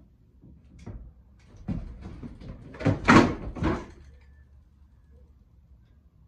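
Mountain bike riding over a homemade wooden ramp out of a shed: a string of knocks and rattles from the tyres on the boards, loudest about three seconds in, then dying away as the bike leaves the ramp.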